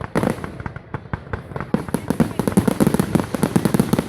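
Fireworks going off in a rapid run of sharp cracks and pops, growing denser about halfway through.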